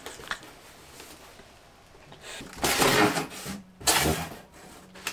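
Parcel packaging being handled: two short bursts of rustling and scraping, about two and a half and four seconds in, after a quiet start.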